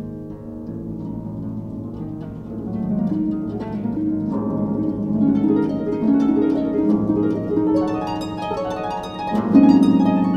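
Unaccompanied concert pedal harp playing a solo cadenza: quick runs of plucked notes that grow louder, with the loudest strike about nine and a half seconds in.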